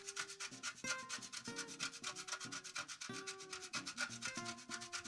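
A block of hard cheese grated on a stainless-steel box grater: quick, even rasping strokes, several a second.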